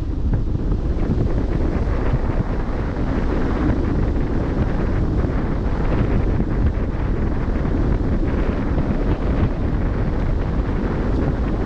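Wind rumbling steadily on the microphone at sea, with the wash of open water beneath it.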